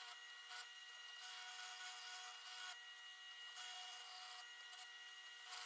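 Near silence: a faint steady hiss with a few thin steady tones.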